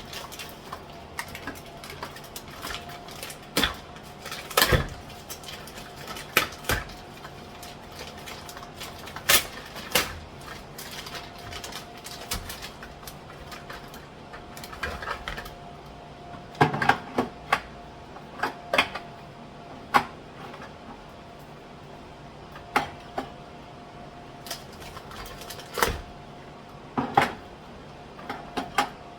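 Irregular knocks and clatters of jars, cans and food containers being set down and shifted on kitchen cupboard shelves, some sharp and loud, over a steady hum.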